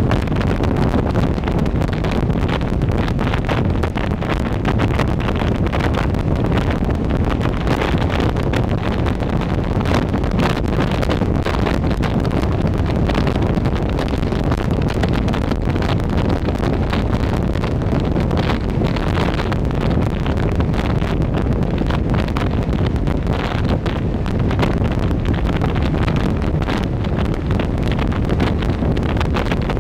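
Steady wind buffeting the microphone at riding speed on a moving maxi-scooter, over a constant low rumble of engine and road.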